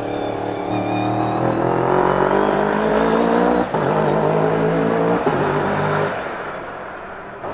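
Engine of an open-cockpit sports prototype racing car accelerating hard past, its pitch rising through the gears with two quick upshifts about three and a half and five seconds in. The sound then fades as the car pulls away.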